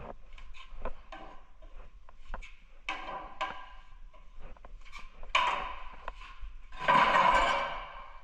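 Tile repair work: a string of light knocks and clicks with a few short bursts of scraping, the loudest lasting about a second near the end.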